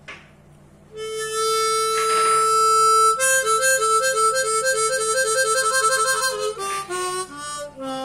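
Harmonica playing a short tune. One note is held from about a second in, followed by a quick run of short notes, then a few notes stepping down in pitch near the end.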